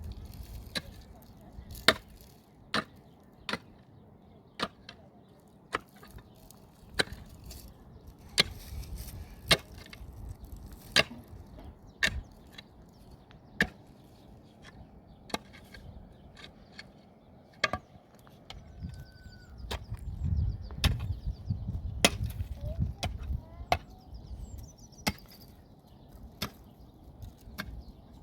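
Axe chopping wood: sharp single strikes, roughly one a second with uneven gaps.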